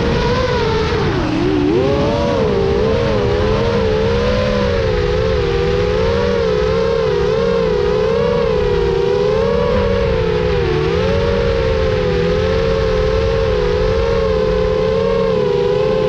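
FPV quadcopter's electric motors and propellers whining, heard close up from its onboard camera; the pitch wavers up and down continuously with the throttle, dipping about a second in before climbing back.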